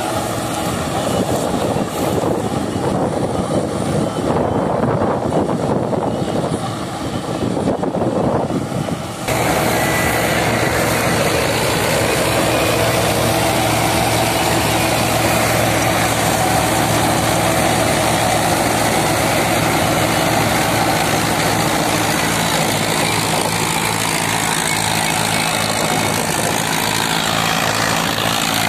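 Mahindra Arjun 555 DI tractor's diesel engine running under load while it drives a tractor-drawn straw reaper cutting and chopping wheat stubble, a dense machine racket over the engine. About nine seconds in the sound changes abruptly and the engine's steady hum stands out more.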